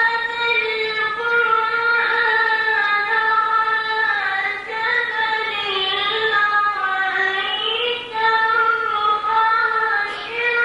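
A boy's high voice reciting the Quran in melodic tajweed style, in long drawn-out phrases that glide between notes, with short breaths about four and a half and eight seconds in.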